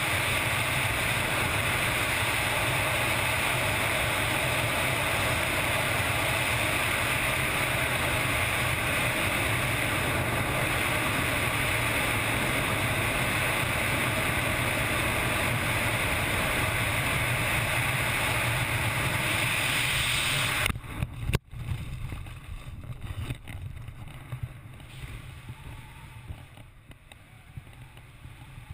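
Loud, steady wind rush on a helmet camera during wingsuit flight. About 21 seconds in it cuts off suddenly with a sharp snap as the parachute opens. Quieter, gusty wind follows under the canopy.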